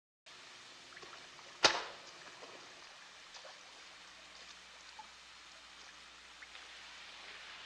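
A single sharp bang about a second and a half in, ringing briefly off the tunnel walls. After it come faint scattered drips and trickles of water over a low steady background.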